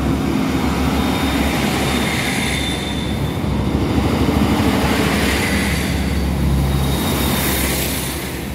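Northern Ireland Railways Class 3000 diesel multiple unit passing at close range over a level crossing: a loud, steady rumble of its underfloor diesel engines and wheels on the rails, with a faint thin high whine. It eases off slightly near the end as the last car goes by.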